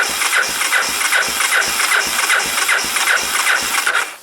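A Honda ATC250SX three-wheeler's electric starter cranking its single-cylinder four-stroke engine on a boosted battery, a steady chug of about four or five compression strokes a second without catching, stopping suddenly near the end. It is a cold start after long storage, cranked without choke.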